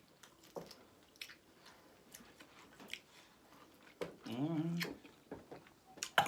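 Eating sounds close to the microphone: chewing with scattered short clicks and smacks, and a brief hummed 'mm' about four seconds in.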